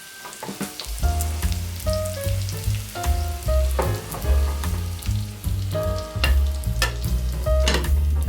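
Food sizzling as it fries in oil in a pan, with scattered sharp clicks, over background music with a pulsing bass line that comes in about a second in.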